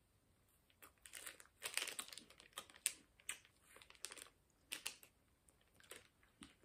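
Irregular crisp crackles of a wafer snack being chewed, with its plastic wrapper crinkling in the hand.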